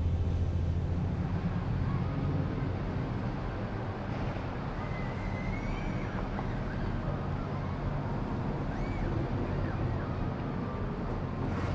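A low, steady ship-engine drone from a passing car ferry, cut after about a second to distant city traffic heard from high above: an even hum and rumble with a few faint, wavering high-pitched glides.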